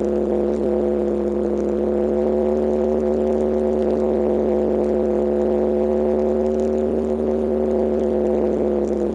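Kawasaki KLX125's single-cylinder four-stroke engine running while the bike is ridden, holding steady revs with an even drone at one pitch.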